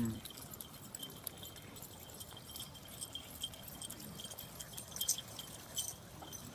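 Faint, light metallic jingling with scattered ticks, and a few louder ticks about five seconds in.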